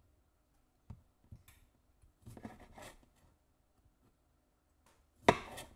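Kitchen knife slicing cherry tomatoes on a wooden cutting board: a few light taps of the blade on the board, a short stretch of cutting and scraping, then one loud sharp knock near the end.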